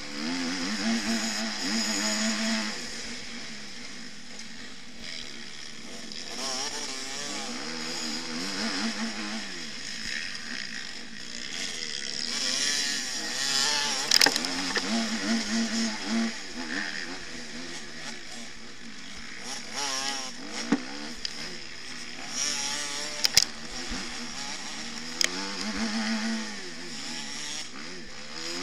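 Motocross bike engine revving up and down as the rider accelerates and backs off, heard from on board with wind noise. A few sharp knocks stand out, the loudest about halfway through and a few more near the end.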